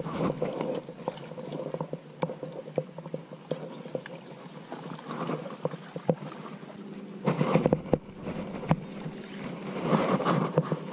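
Close handling noise as gloved hands bait a fishing hook: irregular small clicks and rustles, with louder rustling bursts about seven and ten seconds in, over a faint steady drone.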